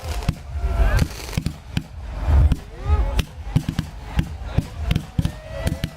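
Fireworks display going off: a rapid, irregular series of sharp bangs and cracks with a deep rumble, the heaviest volley a little past halfway.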